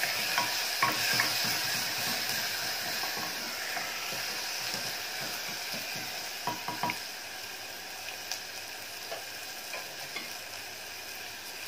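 Chopped onion and tomato frying in oil in an open pressure cooker, a steady sizzle, while a wooden spatula stirs and knocks against the pot. The stirring knocks thin out after about seven seconds, leaving the sizzle as the tomatoes soften.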